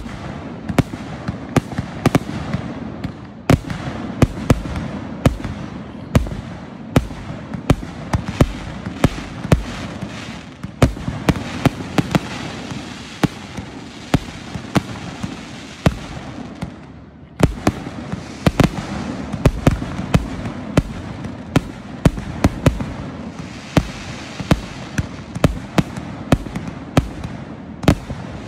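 Aerial fireworks launching and bursting in rapid succession: an irregular stream of sharp bangs, several a second, over a continuous rushing crackle, with a brief lull about two-thirds of the way through.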